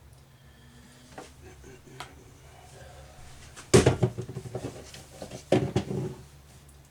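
A few light clicks, then two short loud bursts of knocking and scraping as wood spacers are handled and fitted into a cabinet, the second coming about a second and a half after the first.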